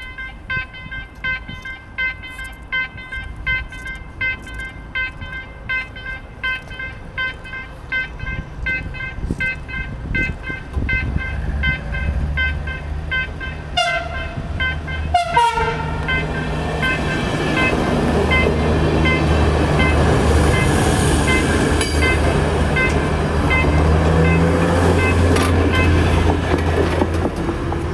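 A warning bell rings rhythmically, about two to three strokes a second, as a passenger train approaches with a low rumble that grows steadily louder. About halfway through, the locomotive sounds its horn in a short blast that falls in pitch, then the train runs past with heavy engine and wheel noise.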